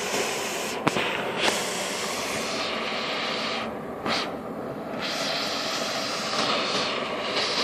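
Burst underground hot-water pipe blasting out steam and water: a loud, steady rushing hiss. A few sharp clicks in the first two seconds, and the hiss thins briefly about four seconds in.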